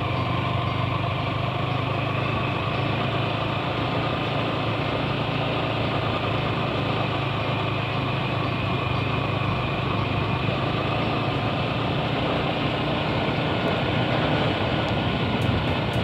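Yamaha YZF-R15 V3 motorcycle's 155 cc single-cylinder four-stroke engine running steadily while the bike cruises at an even speed.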